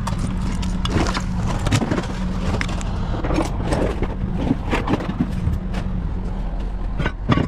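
Heavy equipment engine running steadily with a low hum, with scattered metal clanks and knocks.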